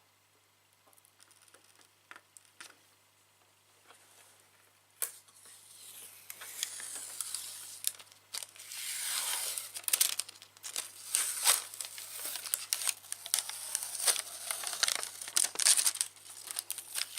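Thin plastic being peeled and crinkled by hand, with dense sharp crackles. It starts faintly about five seconds in and grows louder, after a few faint clicks.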